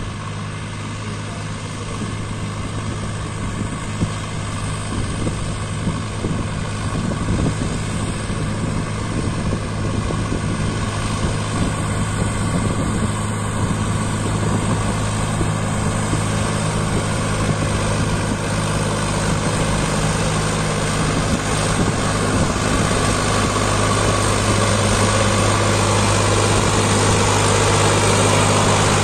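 Sonalika DI 745 tractor's diesel engine running steadily while pulling a loaded sand trolley. It grows gradually louder as the tractor approaches.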